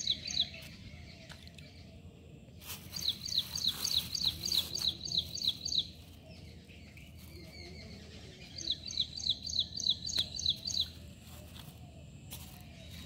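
A bird calling in rapid series of short, high, downward-slurred chirps, about four or five a second. The bouts last two to three seconds with pauses between them, over a steady background of outdoor noise.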